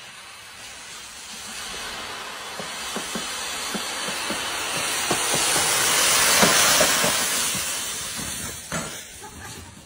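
Dry fallen leaves rushing and rustling as someone slides down a leaf-covered slope through them. The hiss swells to its loudest a little past halfway, then fades, with scattered crackles.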